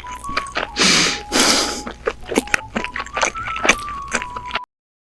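Close-miked eating mouth sounds: a long, loud slurp about a second in, with many wet clicks of chewing and lip smacks, over a thin simple background melody. All sound cuts off abruptly near the end.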